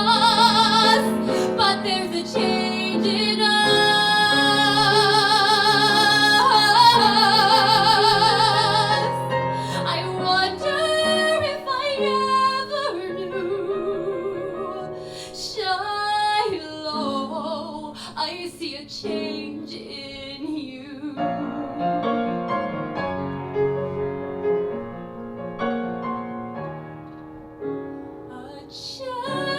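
A woman singing with wide vibrato over piano accompaniment in a musical theatre song, holding long notes for the first ten seconds or so, then singing shorter, quieter phrases.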